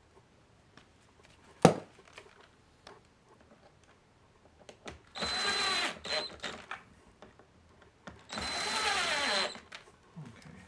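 Cordless drill-driver driving screws into a wooden bed-stop block: two runs of about a second each, about five and eight seconds in, with the motor's pitch falling under load. A sharp knock about two seconds in.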